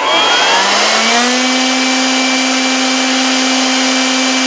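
A small electric motor with a fan, such as a blower or vacuum, spinning up over about the first second and then running steadily with a loud hiss.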